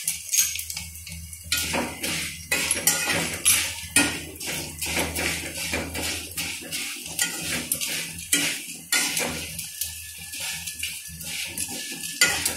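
A wire-mesh skimmer stirring and scraping a heap of fried cornflakes in an iron kadai, with irregular metal clinks and scrapes against the pan.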